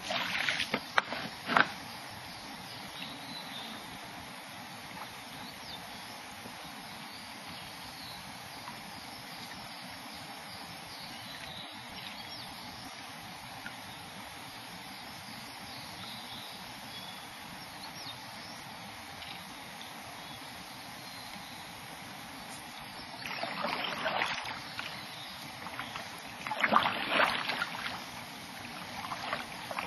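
Kayak paddle strokes splashing in the water, in a few bursts at the start and again in the last several seconds, over a steady background hiss.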